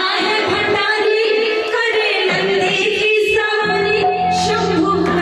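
Devotional bhajan music: singing over a steady held accompaniment, with a lower held note joining about three-quarters of the way through.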